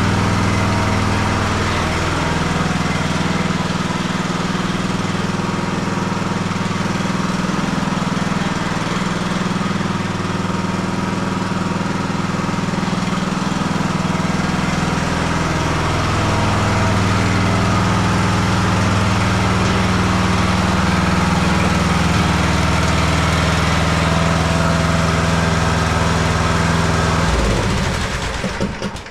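Riding mower's 20 hp Briggs & Stratton Intek engine running steadily, its pitch shifting slightly now and then, then shut off near the end.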